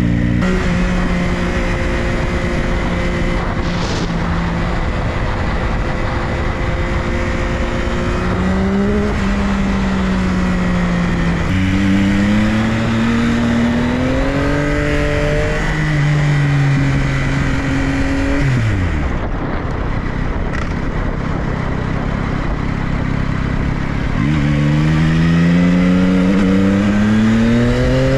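2022 Yamaha XSR900's 890 cc inline-three engine on the move, with rushing wind noise: the revs hold steady, then climb through the gears, fall away sharply about two-thirds of the way through, and climb again in a long acceleration near the end.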